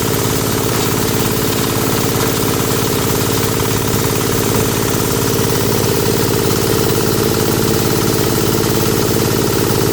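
Multipurpose chopper-grinder for compost and manure running steadily, its drive giving a fast, even pulsing hum.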